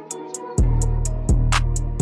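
Background music with a steady beat: quick, even hi-hat ticks, with bass and kick drum coming back in about half a second in.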